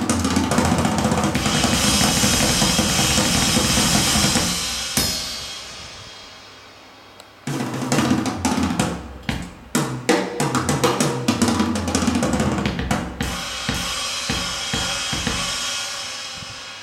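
Drum kit recording played back through Polk Audio RTi A3 bookshelf speakers, with kick, snare and cymbals. A busy stretch of drumming fades out about five seconds in. Hard hits come back about two seconds later and finish on a cymbal wash that dies away near the end.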